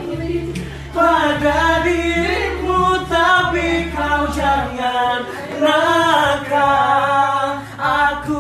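People singing loudly together without words being spoken: a melody in phrases with long held notes that bend in pitch.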